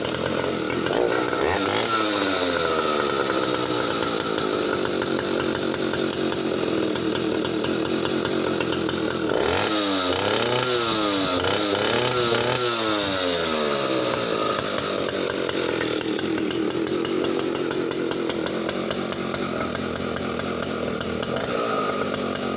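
Large 160 cc two-stroke chainsaw running, with a brief rev about two seconds in and several quick blips of the throttle around the middle.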